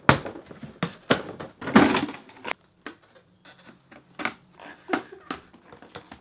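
Hard plastic toy building-set parts being taken out of a cardboard box and knocked together: a string of sharp clicks and knocks, with a longer scraping rustle about two seconds in.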